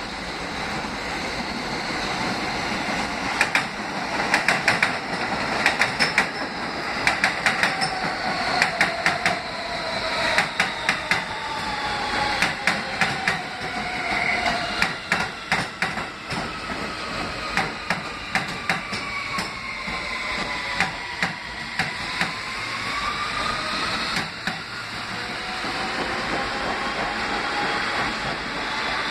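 R160 subway train running past: steel wheels clack rapidly over the rail joints, with the electric propulsion whine gliding down and then back up in pitch.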